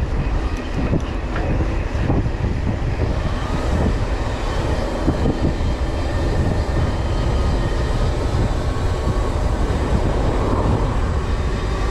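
Wind buffeting the camera microphone with a steady low rumble from a mountain bike rolling along a road at speed.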